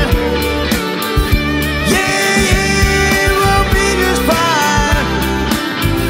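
Rock band playing a song: drums keeping a steady beat under bass and guitar, with a lead voice singing over it.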